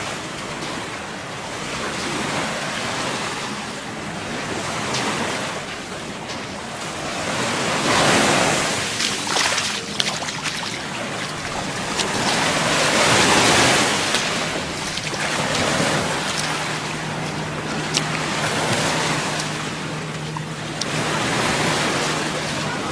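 Gulf of Mexico surf breaking and washing up the beach, swelling and fading every few seconds.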